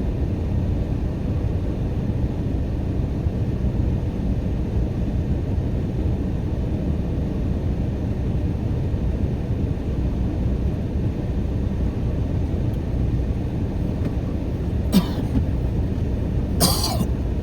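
Car engine idling, heard as a steady low rumble from inside the cabin. Near the end come two short sharp knocks, the second louder.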